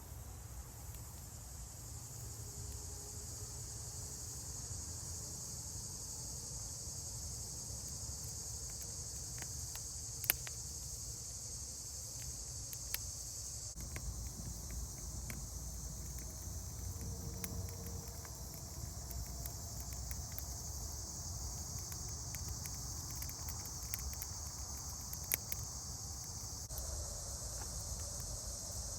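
Steady high-pitched chorus of insects, with a few sharp clicks.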